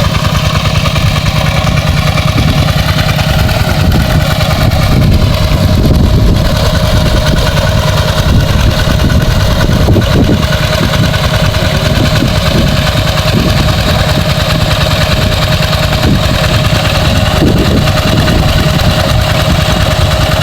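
Engine-driven water pump running steadily at a constant speed, pumping a pond dry.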